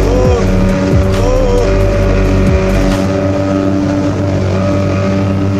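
Speedboat engine running while the boat crosses choppy sea, with background music laid over it.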